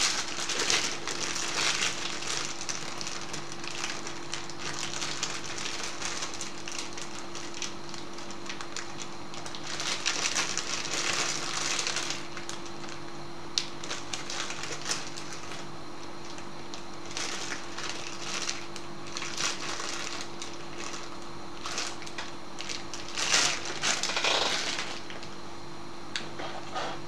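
Rummaging through things while searching for a connecting wire: irregular rustling and crinkling with scattered small clicks and knocks, over a steady low hum.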